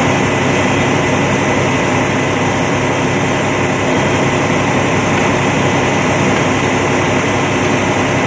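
A heavy engine running steadily and loudly, with a thin steady whine above it, typical of a fire apparatus running at the scene.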